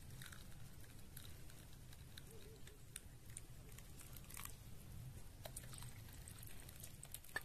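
Wood fire crackling quietly, with scattered irregular pops and snaps.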